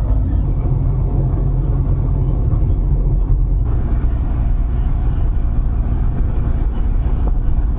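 Steady low rumble of a moving motor vehicle's engine and road noise, heard from on board.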